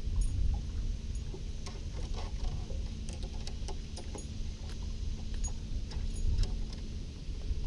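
Irregular light clicks and taps as a caught bass is handled and the lure unhooked from its mouth, over a steady low rumble and a faint steady hum.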